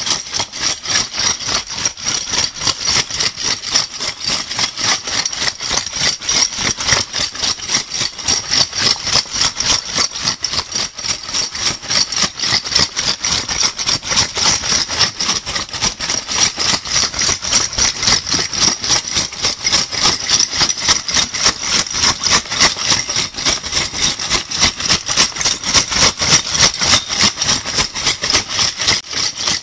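A handful of metal crown bottle caps being shaken, rattling and clinking together in a steady rhythm of several shakes a second.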